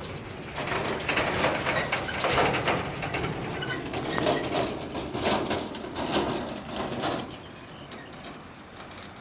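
Footsteps crunching on dry, cracked, crumbly earth, an irregular run of steps that stops about seven seconds in.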